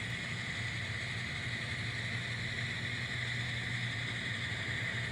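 N scale NS SD70ACe model locomotive running on the layout at low speed: a steady motor whine over a low hum, with light rolling noise from the wheels on the rails.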